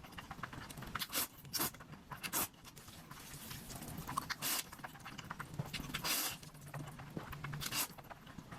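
Close-miked mukbang eating sounds: noodles being slurped and chewed in irregular short bursts, several times a second at moments, with a faint low hum late on.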